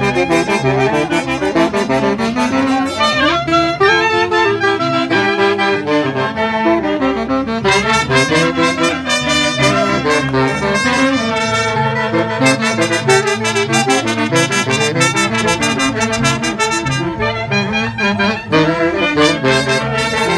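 Andean orquesta playing a dance tune, saxophones and brass carrying the melody over a steady beat.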